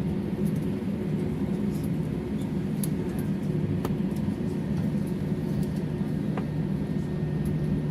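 Jet airliner cabin noise while taxiing after landing: a steady low hum with engine and air noise, and a few faint ticks and rattles.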